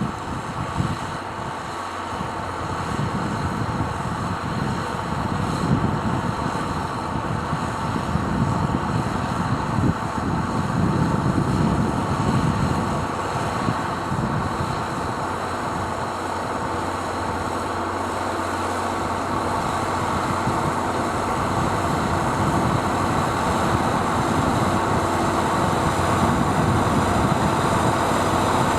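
Zetor Crystal 12145 tractor's diesel engine running steadily under load, pulling a five-furrow plough through wet soil, gradually growing louder.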